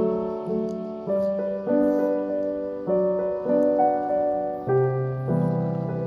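Background music: a gentle solo piano piece, chords and single notes struck every half second to a second, each fading away.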